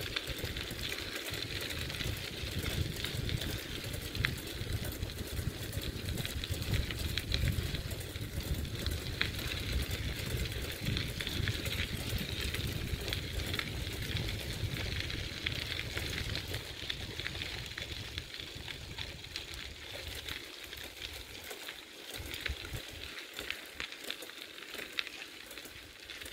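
Riding a bicycle on a gravel trail: wind buffeting the microphone over the crunch of tyres on gravel, with small clicks and rattles. The wind rumble eases after about twenty seconds.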